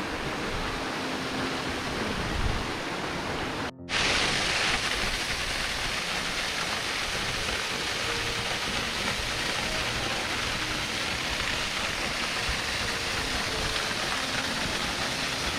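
Steady rush of flowing water from a mountain creek, drop or waterfall, a full even hiss that cuts out for an instant about four seconds in and comes back a little louder.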